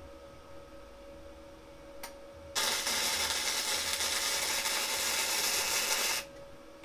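MIG welder arc running in one continuous burst of about three and a half seconds, starting and stopping abruptly: tack-welding a steel shift rod onto the motorcycle's gear shift lever.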